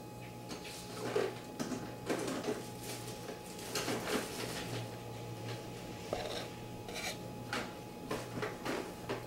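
Kitchen measuring sounds: a measuring cup scooped into a pot of flour and levelled off with a flat-edged knife. These come as a string of short scrapes and rubs with light clinks, every second or so.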